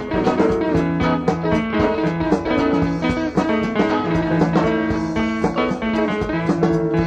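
Background music led by plucked guitar, with a steady beat.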